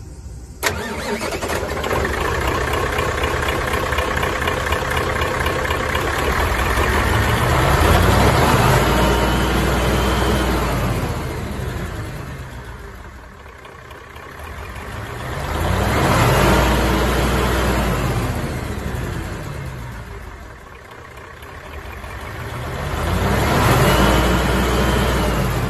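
Mitsubishi Fuso 8DC11 V8 diesel engine running in the truck, steady at first, then revved up and let back down slowly three times, the pitch rising and falling with each rev.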